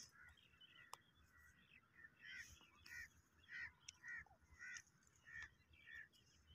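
Faint grey francolin calling: a run of repeated short call notes, about two a second, starting about two seconds in, with a single click about a second in.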